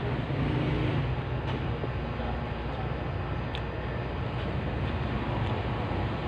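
Steady low rumbling background noise with a couple of faint clicks.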